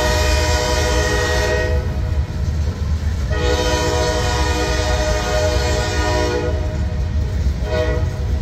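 A freight locomotive's multi-chime air horn sounds part of a grade-crossing signal over the steady rumble of boxcars rolling by. One long blast ends about two seconds in, a second long blast runs from about three to six seconds, and a short blast comes near the end.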